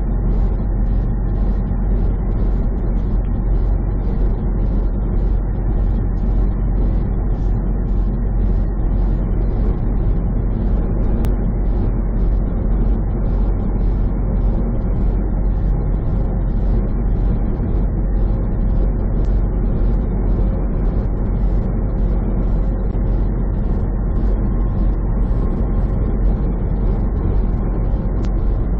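Steady drone of a semi truck's engine and tyre noise at highway speed, heard from inside the cab.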